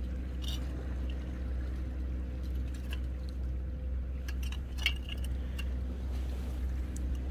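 Scattered small clicks and clinks of stones and shells knocked together underfoot and by hand while foraging on a rocky tidal flat. The sharpest comes about five seconds in, over a steady low hum.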